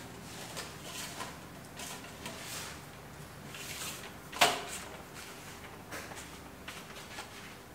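Telescopic extension pole being slid out toward the ceiling, with light scraping and rattling of the tube sections and one sharp click about four and a half seconds in.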